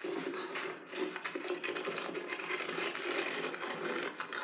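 Crashing and crunching through dry leaves and brush, with camcorder handling rustle, heard through a TV speaker; it cuts off suddenly near the end.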